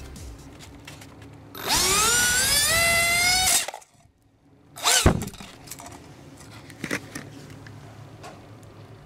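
55 mm electric ducted fan driven by an Emax inrunner motor spinning up: a rising whine that climbs quickly to a loud, high steady whine for about two seconds and then cuts off suddenly. About a second later the fan gives one more short blip of throttle.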